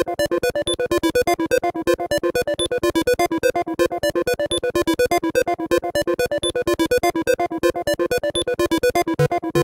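Generative synthesizer arpeggio from the subvitrum sculpture's single ESP8266-driven oscillator with delay, in just intonation: a fast, even run of short electronic notes, about seven a second, slowly changing pattern.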